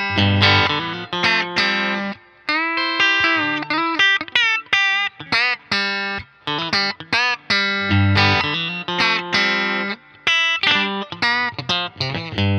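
Single-coil Stratocaster-style electric guitar played through an amp: chords mixed with single-note lines, with several string bends about a third of the way in.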